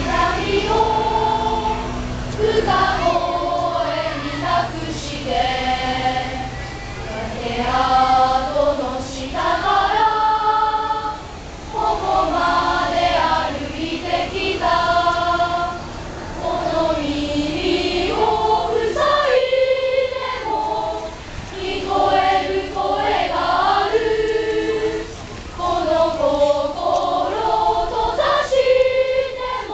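A large group of schoolchildren singing a song together as a choir, phrase after phrase, with short pauses between phrases.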